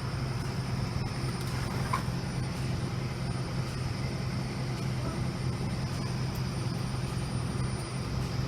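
Steady low hum of a vehicle engine idling, unchanging throughout, with a faint steady high whine above it.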